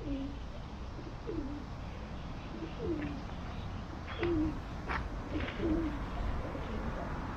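Pigeons cooing: about five short, low, falling coos spaced a second or so apart, over a steady low background rumble.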